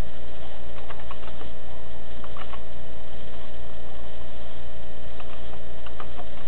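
Slow, irregular typing on a computer keyboard: a few separate key clicks with pauses between them, over a steady low hum.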